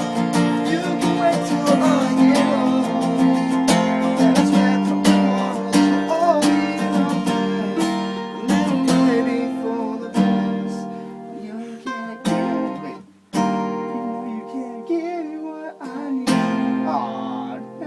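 Acoustic guitar strummed in steady chords, with a voice singing along at times; the playing stops briefly about two-thirds of the way through, then picks up again.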